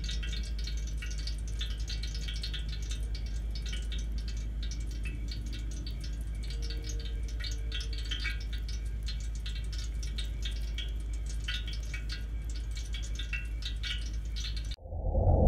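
Wood embers of a campfire crackling with many small irregular pops and ticks over a low steady rumble. The sound cuts off abruptly near the end, and a much louder low sound begins right after.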